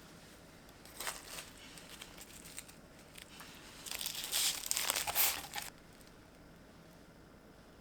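Crinkling as something is handled and crumpled: a short burst about a second in, then a louder, longer stretch of crinkling from about four seconds in, stopping before six.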